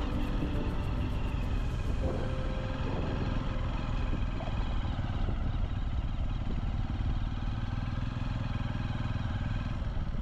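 Small single-cylinder Honda motorcycle engine running steadily while riding.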